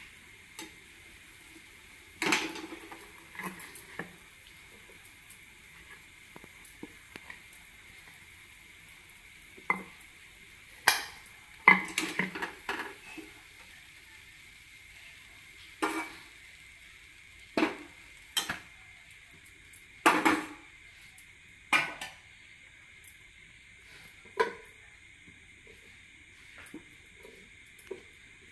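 Sweet corn vadas deep-frying in hot oil with a steady faint sizzle, while a metal utensil knocks and scrapes against the pan at irregular moments, loudest in a cluster a little before halfway and again about two-thirds of the way through.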